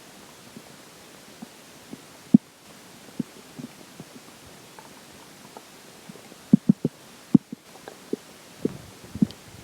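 Human stomach and intestines gurgling while digesting a meal: scattered short pops and bubbling clicks over a steady faint hiss, with one sharp pop about a quarter of the way in and a quick cluster of them about two-thirds of the way through.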